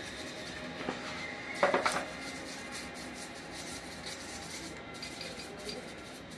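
Brush scrubbing a petrol-soaked Honda Livo carburetor body, a steady scratchy rubbing with small clicks, and a brief metal clatter about one and a half seconds in.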